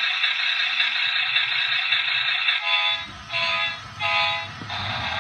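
Innovage Bump n' Go Auto Mania toy car's small speaker playing a tinny recorded engine-running sound. About three seconds in it gives three short electronic car-horn honks, then the engine sound resumes.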